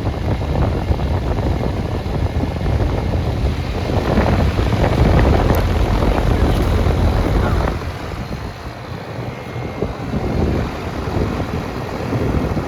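1992 Janitrol central air conditioner's outdoor condenser unit running, its fan blowing air across the microphone as a loud, steady rumbling rush that eases a little about eight seconds in.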